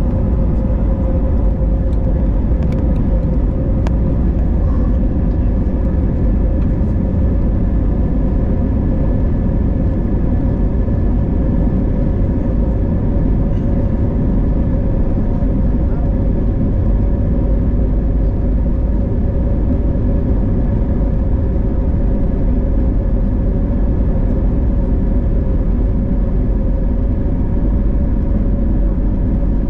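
Steady cabin noise of an Airbus A320neo under way, heard inside the cabin from a window seat: the Pratt & Whitney PW1127G geared turbofans and rushing air make an even, loud rumble with a few steady tones over it, unchanging throughout.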